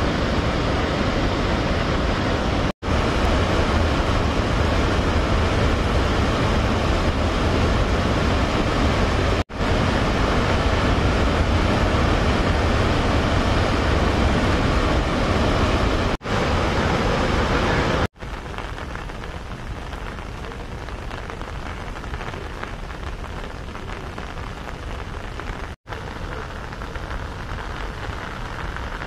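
Steady, loud rushing of floodwater pouring through the open gates of Rawal Dam's spillway, with rain falling, broken by a few brief gaps. About 18 seconds in it drops to a quieter, thinner hiss of rain on the reservoir's surface.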